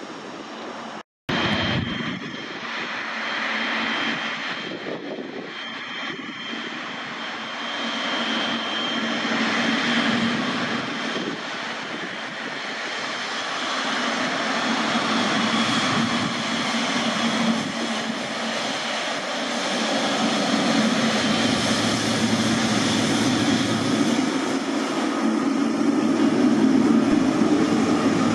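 Jet airliner's engines running, with a steady high whine over a broad rush, growing gradually louder as the aircraft comes nearer. A brief dropout about a second in.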